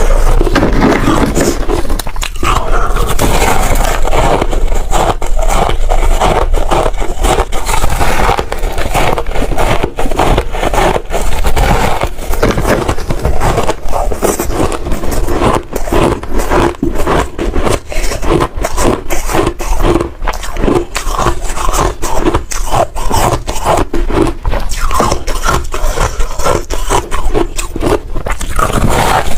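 Hard shaved ice being bitten and chewed close to the microphone: a loud, continuous run of rapid crisp crunches.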